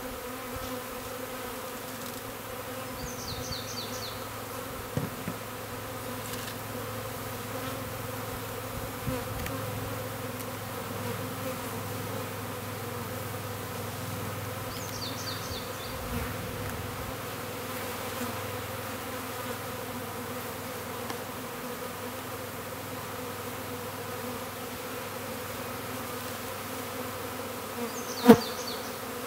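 Steady buzzing hum of a swarm of honeybees from a freshly installed three-pound package, flying around the hive. A single sharp knock sounds near the end.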